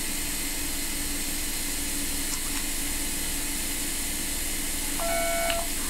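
Steady hiss, and about five seconds in a single short electronic beep from the iTero digital intraoral scanner, the signal that it has captured a scan image.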